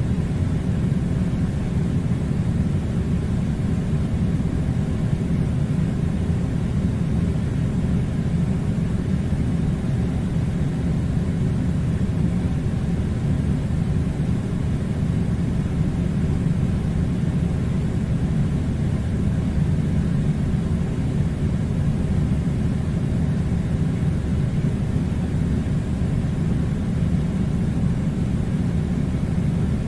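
Air conditioner running with a steady low rumble that does not change.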